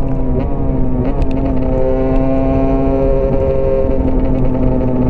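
Husqvarna TE 125's small two-stroke single-cylinder engine running on the move: its pitch eases down over the first second, jumps briefly about a second in, then holds steady at high revs.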